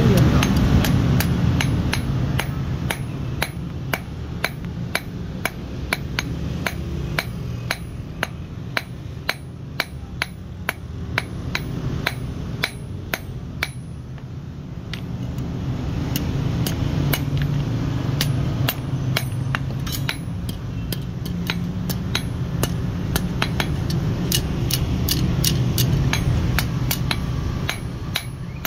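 Hand hammer striking a steel sickle blade on a steel anvil block in a steady run of ringing metal blows, about two a second, forging the blade to shape. A steady low hum runs underneath.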